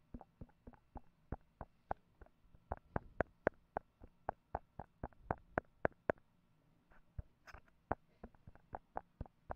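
Fingertip taps on the body of an Audio-Technica AT8004 handheld omnidirectional microphone, picked up by the microphone itself as handling noise. It is a run of sharp, dry knocks, about three a second, with no ringing after them. The taps pause briefly a little past halfway, and there is one short scraping sound about three quarters through.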